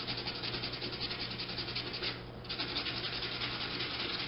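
220-grit sandpaper rubbed in quick back-and-forth strokes over a small electric motor armature's commutator plates, scouring off rust and dirt. The strokes pause briefly about two seconds in.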